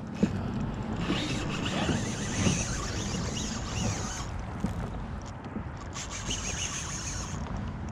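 A spinning reel cranked in two spells of whirring, with a few small clicks, over low wind and water noise from the kayak.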